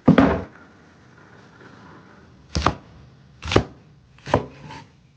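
Knife chopping food on a cutting board: one hard chop, a pause, then single chops about a second apart.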